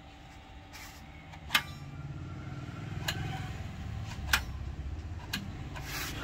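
Four sharp clicks about a second apart over a low rumble that grows louder after the first two seconds.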